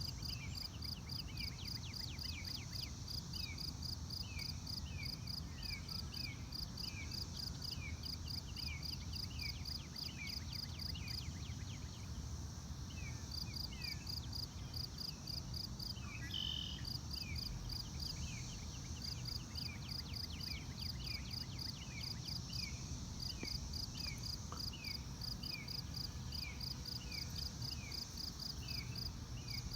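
Outdoor field ambience of insects and small calling animals. A high insect trill of quick, even pulses stops for a couple of seconds midway, then resumes. Short falling chirps repeat about once a second over a steady low rumble.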